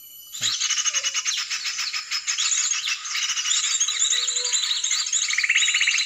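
Dense chorus of small birds chirping and trilling rapidly, starting abruptly about half a second in, with a fast trill near the end.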